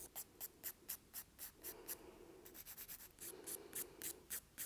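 Nail file rasping over the surface of a fingernail in quick short strokes, about three or four a second, with a brief pause about two seconds in. The nail surface is being roughened before press-on nails are applied.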